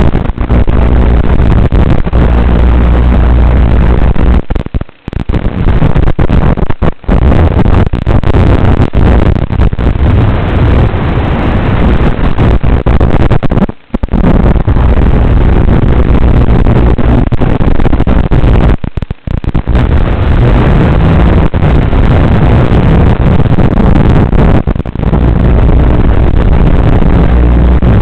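Blade Torrent 110 quadcopter's motors and propellers with wind, picked up by its onboard FPV camera microphone as a loud, distorted roar with a low hum. The sound cuts out briefly a few times.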